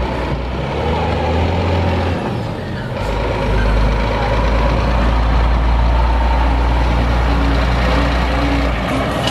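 Scania G440 fire tanker's straight-six diesel engine running as the truck approaches and passes close by. The low engine drone gets stronger about three seconds in.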